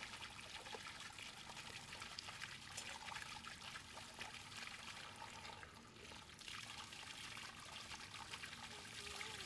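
Faint, steady trickling of running water, with a continuous babble of small splashes that briefly eases about six seconds in.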